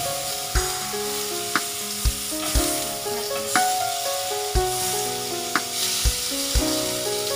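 Food sizzling in a frying pan, under background music with a melody and a steady beat of about two strokes a second.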